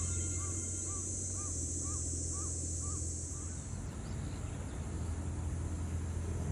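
A bird calling over and over, a run of short rising-and-falling notes about two a second that stops a little over three seconds in, over a steady high hiss that ends about a second later and a low steady hum.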